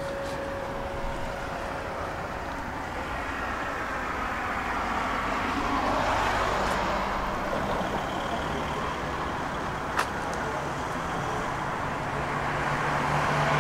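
Tram running along the track, growing steadily louder, with a faint motor whine in the middle and one sharp click about ten seconds in.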